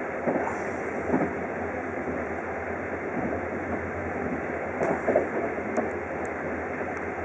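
Running noise heard inside a CityNightLine night-train coach as it rolls along: a steady rumble of wheels on rail, with a few short knocks, about a second in and again around five seconds in.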